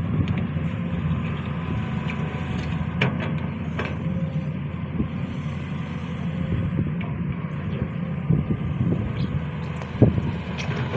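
Sany SY215C excavator's diesel engine running steadily, with a few short knocks about three, four and ten seconds in.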